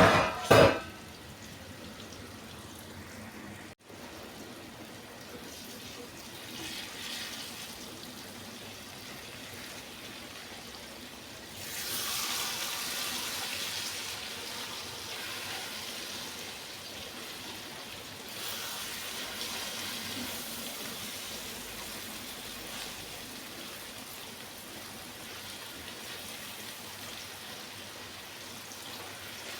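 Yam frying in hot oil: a steady sizzle that swells louder about twelve seconds in and again around eighteen seconds.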